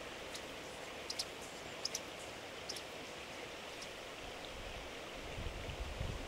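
Steady rush of river water, with a few brief high chirps in the first three seconds. Wind rumbles on the microphone from about five seconds in.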